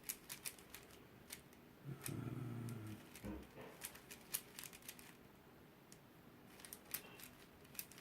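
Irregular plastic clicking of a small 35 mm Cubing Classroom 3x3 puzzle cube as its layers are turned in a speed solve, with a brief low hum about two seconds in.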